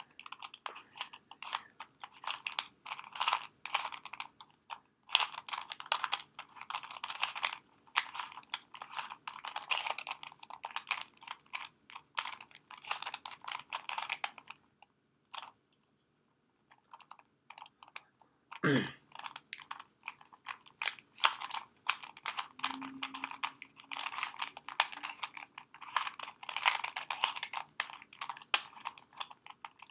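Plastic Rubik's cube being twisted layer by layer, a rapid clicking and clacking in bursts with a short pause midway. The cube turns stiffly, a 'crunchy' feel.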